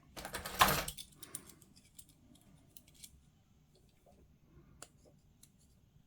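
Sprue cutters snipping and working on a plastic miniature part in the first second, then scattered light clicks of small plastic pieces being handled.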